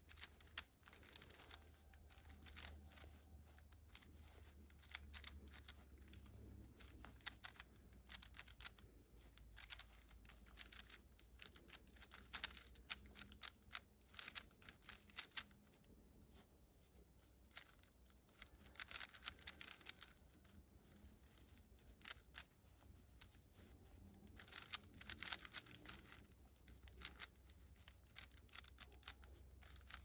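A Rubik's Cube being turned quickly by hand: runs of rapid plastic clicks as the layers snap round, in bursts with short pauses between them.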